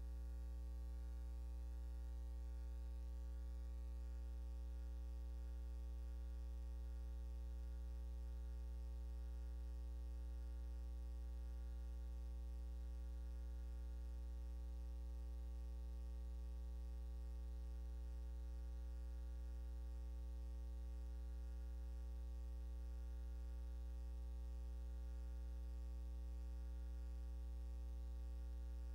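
Steady low electrical mains hum with a faint hiss, and no other sound.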